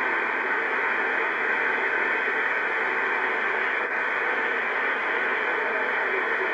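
Steady rushing of mountain-river rapids, a hiss-like noise with no breaks. It is heard through a television speaker on a re-recorded VHS tape, which makes it thin and narrow.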